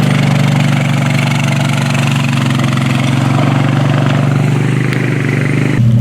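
A vehicle engine running steadily, its note changing near the end.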